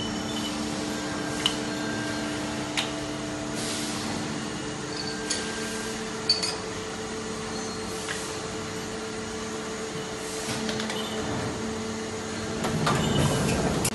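Steady hum of a CNC machining centre in a factory, with sharp metallic clicks and clinks as steel wheel-hub parts are handled on the machine's fixtures. There are a few short bursts of hiss, with a longer, louder one near the end.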